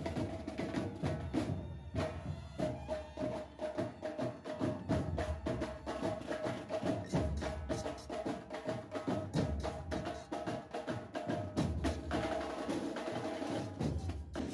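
Marching band drumline of snare drums playing together, a dense run of stick strokes on drumheads and rims.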